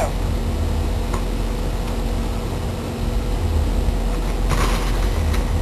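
Steady low rumble with a constant hum, heard from inside a parked car's cabin. A short hiss comes about four and a half seconds in.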